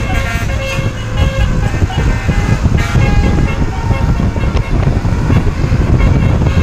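A bus's musical telolet horn (basuri) playing a tune in held notes that step in pitch, over the low rumble of an engine and traffic.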